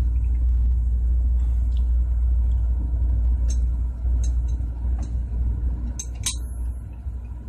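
Steady low rumble of background machinery, with several light metal clicks as the parts of an air compressor's compound valve are turned and seated by hand; the sharpest click comes near the end.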